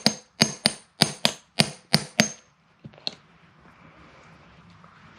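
Hammer tapping a ball bearing into the ADA Racing 54 mm centrifugal clutch bell: about eight light, quick metallic taps over the first two seconds, then the tapping stops. The taps are kept gentle and slow so the bearing seats without being damaged.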